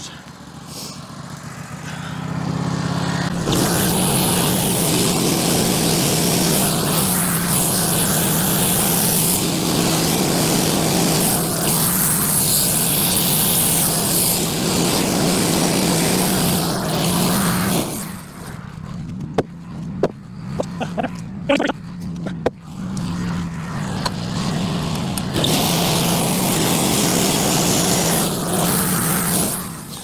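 Wood-Mizer LT15 Go portable band sawmill with its engine running and the band blade sawing lengthwise through a pine cant. The cutting noise builds up a few seconds in, eases a little past halfway with a few sharp knocks, then comes back strong and drops off near the end.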